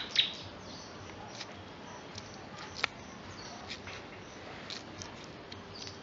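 Scattered light clicks and crackles of thin twigs being bent and woven together by hand, with a louder click right at the start and another sharp click about three seconds in.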